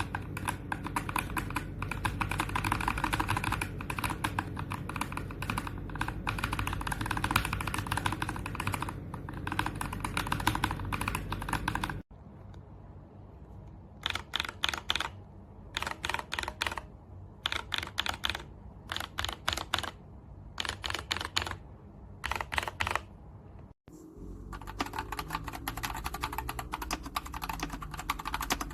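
Mechanical keyboard with Akko Cream Yellow V3 linear switches (50 g) being typed on: fast continuous typing. After a cut about 12 s in, short clusters of rapid keystrokes come about once a second. After a second cut near the end, the continuous typing resumes.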